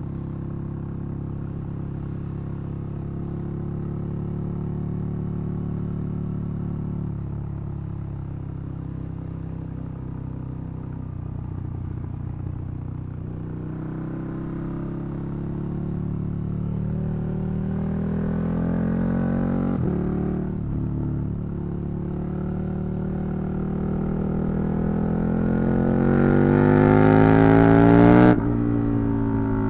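KTM 1290 Super Duke R's V-twin engine, first at steady low revs, then accelerating with rising pitch. A gear change breaks the climb about two thirds of the way in, and the engine pulls again to its loudest near the end before the revs drop off sharply.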